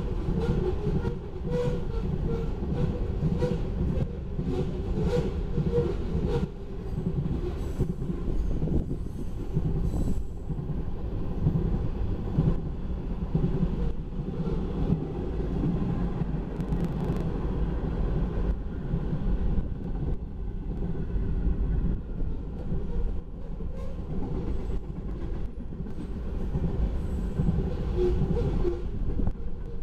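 Freight train cars rolling past at a grade crossing, covered hoppers and then tank cars, with a steady rumble and the clatter of wheels over the rails.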